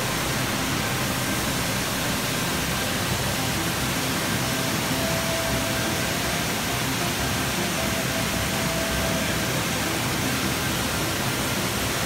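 Black Linn Falls on the River Braan: white water pouring over and between large rocks, heard as a steady, even rush of noise with no change.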